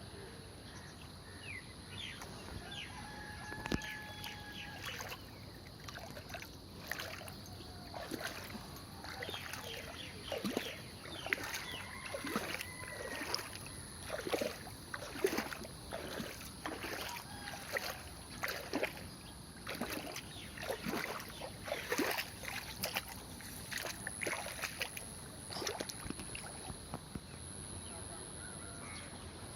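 A rooster crows twice, about three seconds in and again about twelve seconds in, among many short falling calls and a steady high-pitched hiss.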